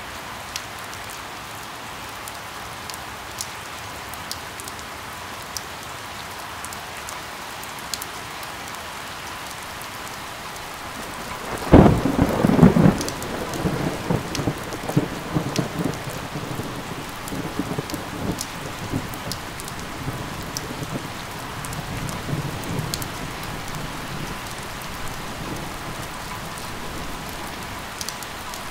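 Steady rain with scattered drops ticking close by. About twelve seconds in, a loud clap of thunder breaks and rolls on as rumbling that slowly fades.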